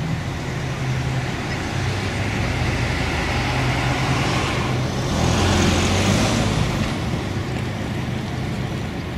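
The four Wright R-3350 radial piston engines of a Lockheed L-1049 Super Constellation droning steadily on final approach, swelling louder about halfway through.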